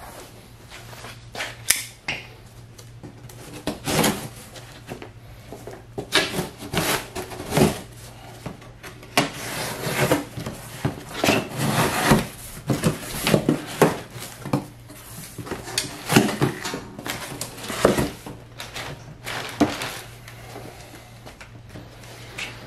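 Cardboard shipping box being opened by hand: taped flaps pulled apart and crumpled kraft packing paper handled, in a run of irregular rips, scrapes and knocks.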